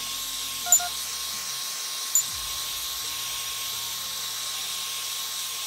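Heat gun blowing steadily, a hiss with a faint steady whine, warming adhesive so that it will stick. Two brief sharp blips come about a second and two seconds in.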